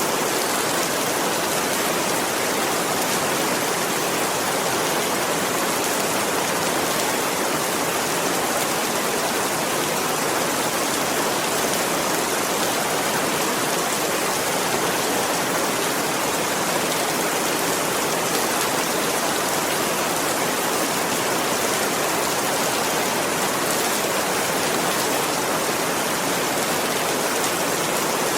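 Steady rain falling in an even hiss, unchanging in level throughout.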